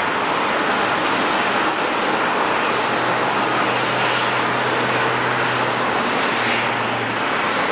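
Airliner jet engines running: a steady, even rush of noise, with a faint low hum joining about three seconds in.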